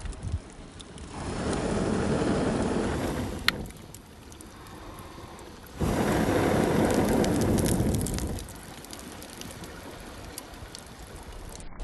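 Wood fire burning inside a log rocket stove, crackling faintly, with two loud rushes of wind of a few seconds each swelling over it, the second starting suddenly.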